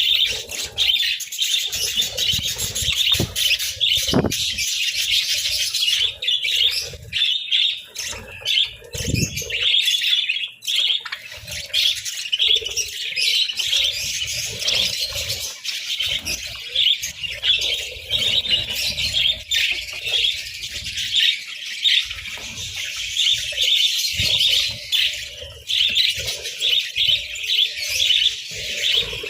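A flock of budgerigars chattering and chirping nonstop in a dense, overlapping warble, with a few soft low thumps here and there.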